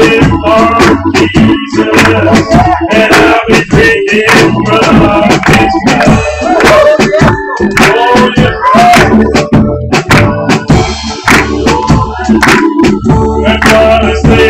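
Live church band playing an instrumental stretch of an upbeat gospel song, with a drum kit keeping a steady beat under a melody line.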